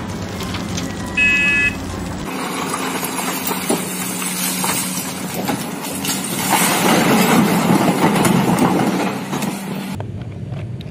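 Large hydraulic excavators working, first a Cat and then a Komatsu. A diesel engine runs steadily, with a short beep about a second in. Then comes the rumble and clatter of rock being dug and loaded, loudest from about six and a half to nine seconds.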